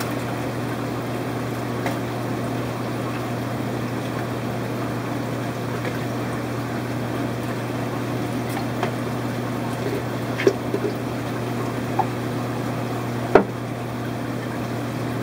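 Aquarium pumps and filtration running: a steady low hum with water noise. A few light clicks of plastic cups being handled, the loudest near the end.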